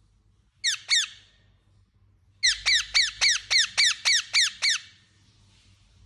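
Indian ringneck parakeet calling: two quick calls, then a fast run of about nine, about four a second, each call falling sharply in pitch.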